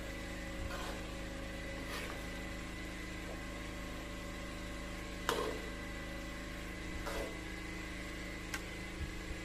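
Metal slotted spatula scraping and knocking against an aluminium wok now and then as a curry of eggplant and potato chunks is stirred, about five or six short strokes. Under it runs a steady electrical hum.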